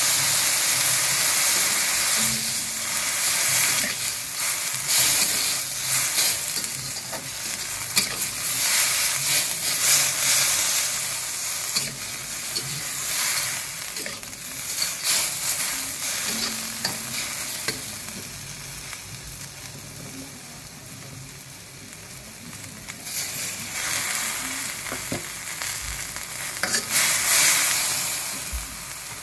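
Bean sprouts, quail eggs and chilies sizzling in a stainless steel wok while a slotted metal spatula stirs and scrapes them, with short clinks of metal on metal. The sizzling eases off for a few seconds after the middle, then picks up again toward the end.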